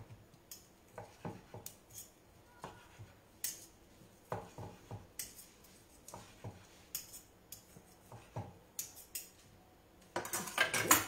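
Kitchen knife slicing a seared tuna steak on a wooden cutting board, with scattered short knocks and taps of the blade and a fork against the board. About ten seconds in comes a louder, quick clatter of utensils.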